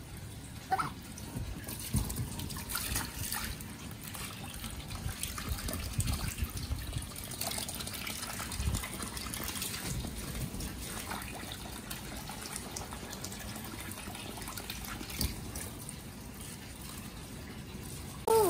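Water running from a garden hose and splashing onto the vinyl floor of a shallow inflatable paddling pool, with a few soft knocks scattered through it.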